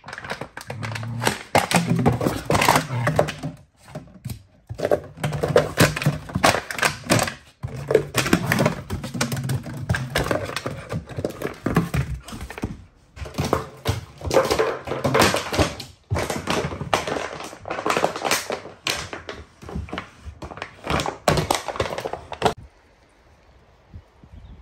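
A puppy playing hard on a wooden floor: a busy, irregular run of knocks, taps and thuds, with low growling in places. It stops suddenly near the end.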